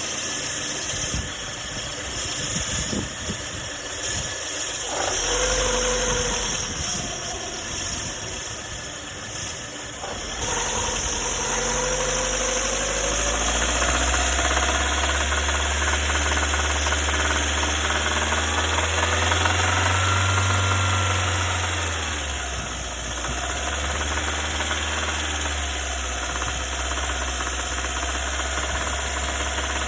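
Lada Granta's four-cylinder petrol engine running with a knock. The engine speeds up around the middle and then settles back to a steady idle. The owner presents the knock as crankshaft knock.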